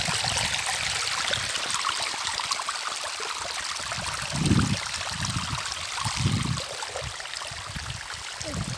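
Shallow water running steadily over rocks and mud in a small channel. Several dull low thumps come in the middle of the run.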